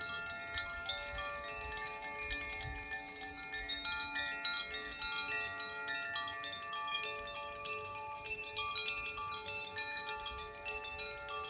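Hand-held tuned chimes (Koshi and Irohana chimes) gently swung, their clappers striking again and again so that many bell-like notes ring on and overlap in a steady shimmering wash.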